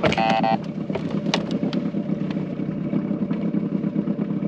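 Boat motor running steadily at idle. A short electronic beep of about half a second sounds right at the start, with a few light clicks afterwards.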